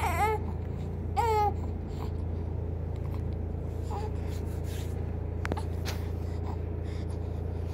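An infant gives two short fussing cries in the first second and a half, then falls quiet. A steady low hum runs underneath, with a few faint taps later on.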